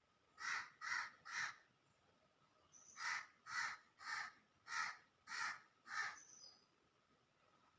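Crow cawing in two runs: three caws, a pause, then six more, evenly spaced about half a second apart, with faint high chirps of a small bird between them.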